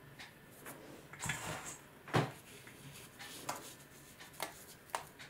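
Light knocks and clunks of containers being handled while sowing seeds, with one sharper knock about two seconds in.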